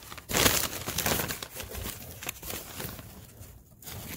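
Crumpled newspaper packing rustling and crinkling as it is handled, loudest in the first second and then quieter.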